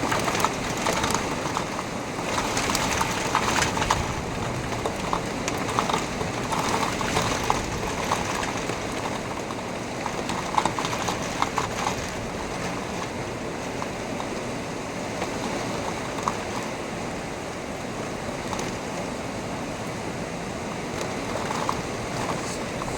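Heavy rain pouring steadily during a thunderstorm, with a dense crackle of drops striking a hard surface close by, busier in the first half.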